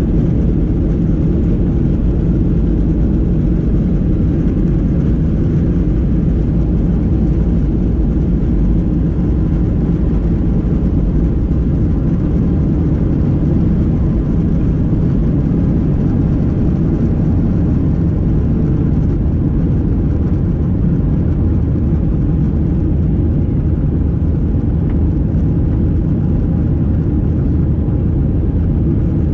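Cabin noise of a Boeing 737-800 under power: a steady, loud low roar from its CFM56-7B jet engines and the airflow.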